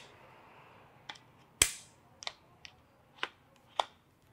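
Sharp clicks and knocks from a camera's standard plate being taken out of the Peak Design Travel Tripod's ball-head quick-release clamp and pushed back in from another direction: about six clicks over three seconds, the loudest about a second and a half in.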